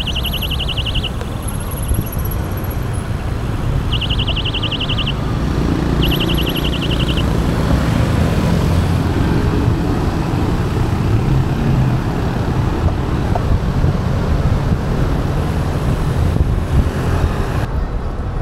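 Road traffic of cars and motorcycles heard from a moving bicycle, with a steady low wind rumble on the microphone. Three short, fast-pulsed high chirps of about a second each sound in the first seven seconds.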